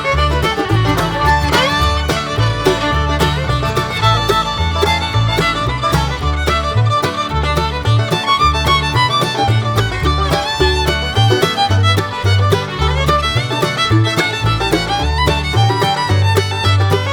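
Fast bluegrass music with a prominent fiddle over a bouncing bass line, with guitar and banjo.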